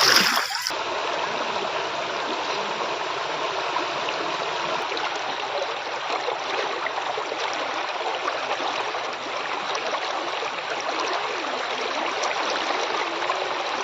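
Floodwater flowing steadily, a continuous rushing water noise, after a brief louder sound in the first moment.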